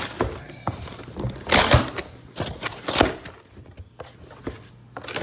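Handling noise from motor oil bottles being moved about: several short bursts of rustling and bumping, with quiet gaps between.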